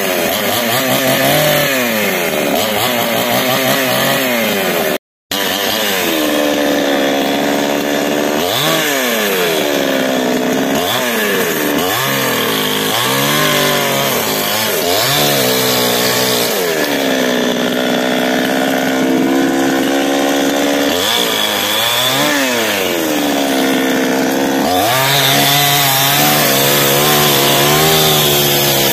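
Two-stroke gasoline chainsaw cutting through a tree trunk, its engine revving up and dropping back again and again as the chain works through the wood. There is a brief break about five seconds in.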